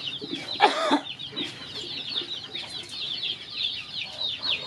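Baby chicks and ducklings peeping constantly: a dense run of short, high, falling peeps. One louder, lower call cuts in about half a second to a second in.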